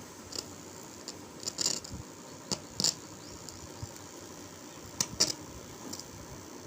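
A handful of short clicks and rustles, several in quick pairs, over a steady background hiss: small objects being handled.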